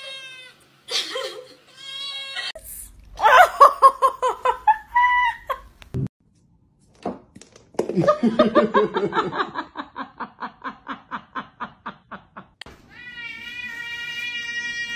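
A kitten meowing twice, then a person laughing hard in rapid bursts, about four a second, fading out. Near the end a cat gives one long, steady, high meow.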